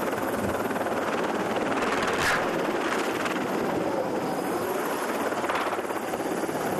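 Helicopter running steadily, its rotor chop and engine noise loud and even throughout.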